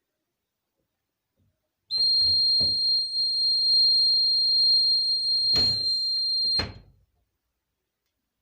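Buzzer of a homemade laser security alarm sounding one steady high-pitched tone for about five seconds, the alarm going off. Several sharp knocks come with it; one marks its start and another cuts it off.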